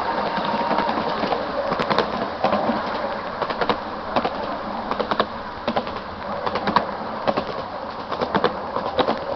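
Steam-hauled 7¼-inch-gauge miniature train running along its track, heard from an open passenger carriage: a steady running rumble with irregular sharp clicks and knocks from the wheels and carriages, more frequent in the second half.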